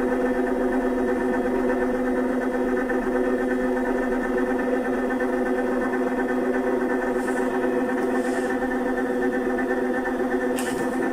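Electric vibration-therapy (mechanotherapy) apparatus running steadily, shaking the patient lying on it, with a constant buzzing motor hum.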